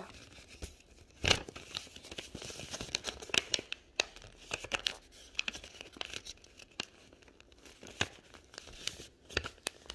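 A sheet of paper being handled and creased as it is folded into a paper airplane: irregular rustles and crinkles with small clicks, one louder rustle about a second in.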